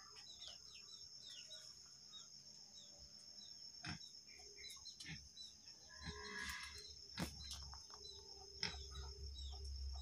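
Faint outdoor birdsong: many short, quick chirps over a steady high-pitched insect drone, with a few sharp knocks and a brief rustle partway through.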